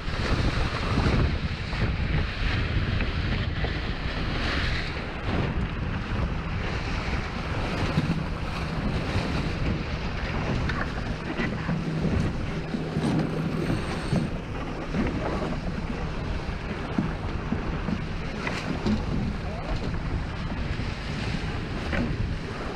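Strong wind buffeting the microphone over water rushing along the hull of a J/22 sailboat sailing in high wind, with gusty swells and a faint low hum through the middle.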